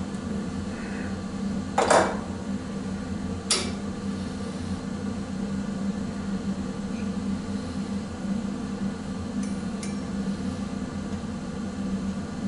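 A steel block set down on the T-slotted cast-iron table of a milling machine: two sharp metallic clanks about a second and a half apart, a couple of seconds in, over a steady low hum.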